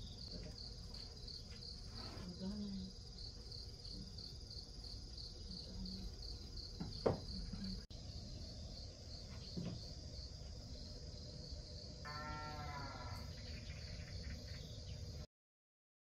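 Crickets chirping in a steady, even pulse, with a sharp click about seven seconds in and a short pitched call near the end, after which the sound cuts off.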